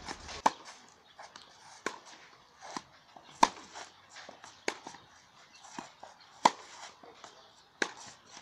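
Tennis rally: a ball struck by rackets with a sharp pop about every one and a half seconds, six hits in all, with fainter ticks between them.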